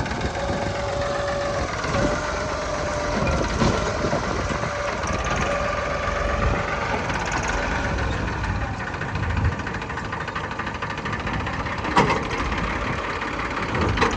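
Diesel engine of a backhoe loader or tractor running steadily, with a thin whine through the first half and a few knocks, the sharpest about twelve seconds in.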